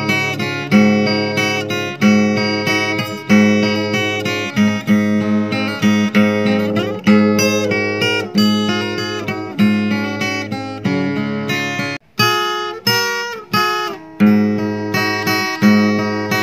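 Background music: acoustic guitar playing plucked and strummed chords, with a brief break about twelve seconds in.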